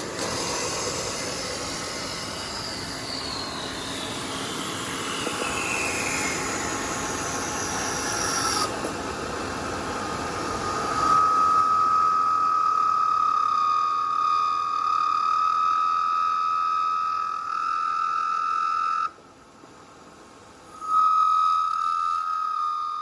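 Genini automatic wood-turning lathe machining a timber finial. A noisy cutting sound with a whine that falls steadily in pitch over the first eight seconds gives way to a steady high-pitched machine whine, which cuts off abruptly about two-thirds of the way in and starts again shortly after as the machine cycles.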